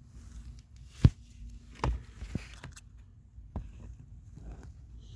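Scattered sharp knocks and clicks of hands and tools handling parts, the loudest about a second in, with a faint steady hum underneath for the first few seconds.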